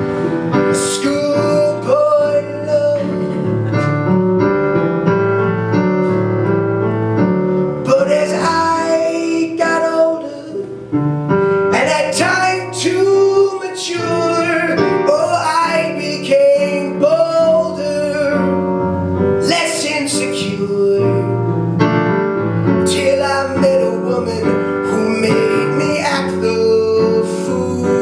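Band music led by keyboard, with sustained chords and a melody line over them.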